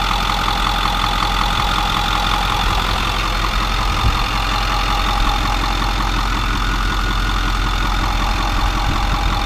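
Ford 6.4-litre Power Stroke V8 turbo-diesel idling steadily, heard from over the open engine bay, with an even, fast diesel ticking.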